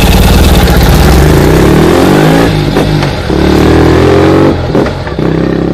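2020 Ural GearUp sidecar motorcycle's boxer-twin engine running through a GPR high-mount two-into-one stainless steel exhaust, pulling away and accelerating. The revs rise, with brief dips in the sound about three and five seconds in as it shifts gear.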